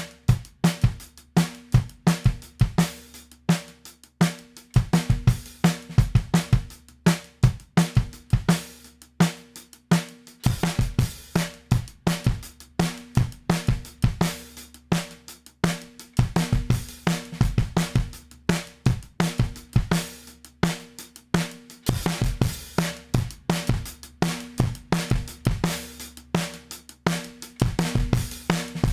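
Drum kit recording (kick, snare, hi-hat and cymbals) playing a steady beat, run through a Toneloc Level-Loc compressor to demonstrate its sound.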